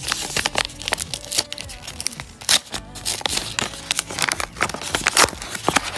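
Plastic blind-bag packaging being handled and torn open: a dense run of crisp crinkles, crackles and rips.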